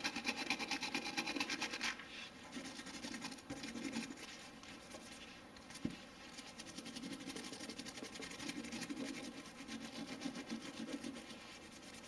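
Nylon bristle brush scrubbing a Glock 19 pistol barrel in quick back-and-forth strokes, a dry scratching that is loudest in the first two seconds. A single light knock comes about six seconds in.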